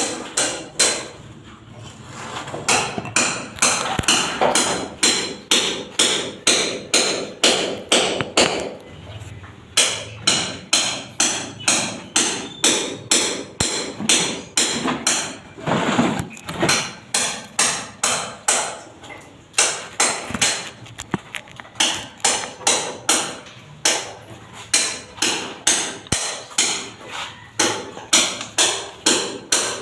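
Hammer striking again and again, about two blows a second, in runs broken by short pauses of a second or two.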